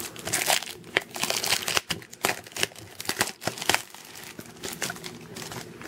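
Clear plastic packaging of a trading-card set crinkling and clicking as hands handle it and pull it open, in irregular crackles and taps.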